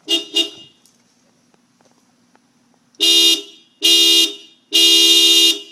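Car horn honking: two brief toots at the start, then three loud honks of a steady note about three seconds in, the last one the longest.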